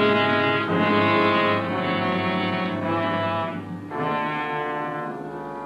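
Orchestral brass music bridge in a radio drama: held brass chords that change twice and fade away toward the end.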